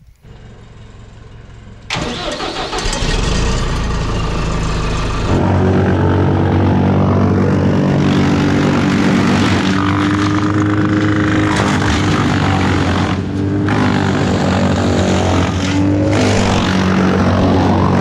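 Tow-behind wood chipper running loud as dead branches are fed in and chipped, the engine note shifting and dipping as the wood goes through. It starts suddenly about two seconds in.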